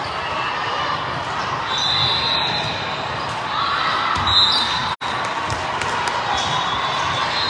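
Indoor gym game noise: a ball bouncing on a hard court amid spectator chatter, echoing in a large hall. The sound cuts out for an instant about five seconds in.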